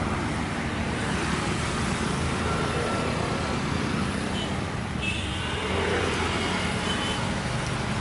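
Steady noise of road traffic passing on a highway, a continuous low rumble of vehicles.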